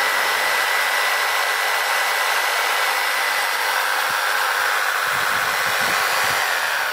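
Makita 450 W jigsaw running free in the air, not cutting: a steady motor noise with a high whine over it. Near the end the whine falls as the motor slows. It runs smoothly on power from a 2000 W inverter.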